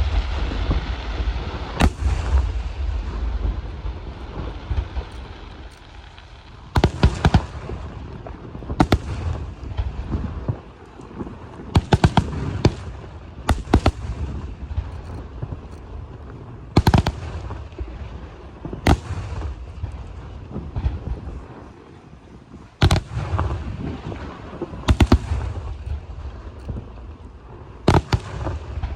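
Aerial firework shells bursting overhead: about ten loud booms, some coming in quick pairs, with a rumbling, crackling wash of echo and smaller reports between the bursts.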